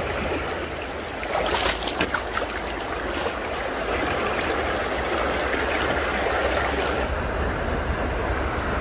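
Shallow creek water running steadily over rocks, with a short run of splashes and knocks about a second and a half in as a stone is handled in the current.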